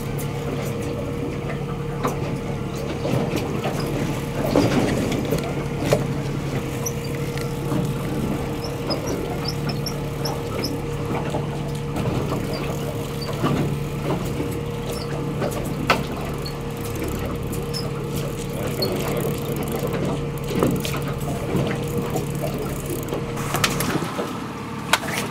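Boat's outboard motor running steadily with a constant hum. Scattered knocks and clicks come from handling gear on the boat.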